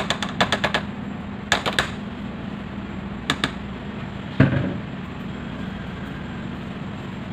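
Spatula tapping and scraping thick brownie batter out of a plastic mixing bowl into a metal baking pan: quick runs of light clicks in the first two seconds, two more at about three seconds, and one louder thump about halfway through, over a steady low hum.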